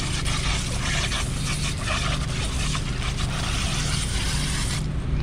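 Water hissing from a hose spray nozzle as a plastic box is rinsed, cutting off sharply near the end, over a steady low hum.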